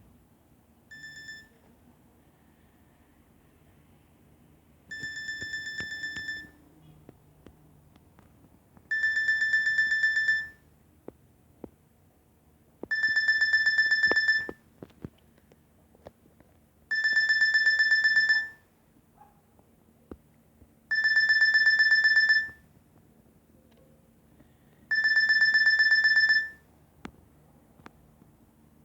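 Nokia 6300 mobile phone ringing: a repeating electronic ring tone, each ring about a second and a half long and coming every four seconds. It starts faint and gets louder over the first three rings, then holds steady.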